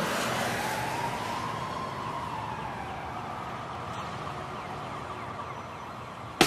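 A siren wailing once, rising and then slowly falling in pitch, over a steady rush of street and traffic noise. Strummed guitar music cuts in near the end.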